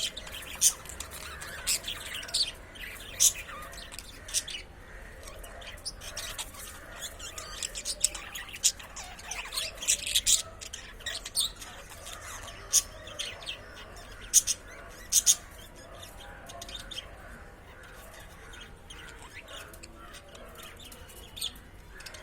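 Male budgerigar chirping and chattering in short, sharp, high-pitched calls at an irregular pace, busiest midway and fewer near the end.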